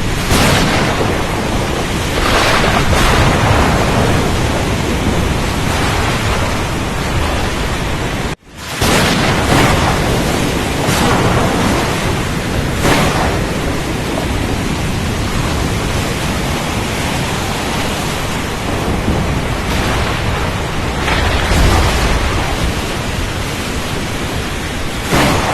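Storm at sea: a dense, steady rush of rain and wind with louder surges every few seconds, and a deeper rumble about 21 seconds in. The sound cuts out for a moment just over 8 seconds in, then comes back at once.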